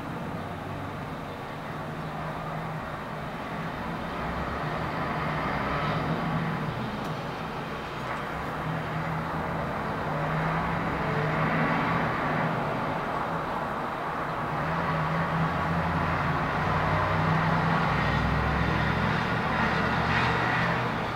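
Vehicle noise, a steady rumble and rush that swells and fades several times.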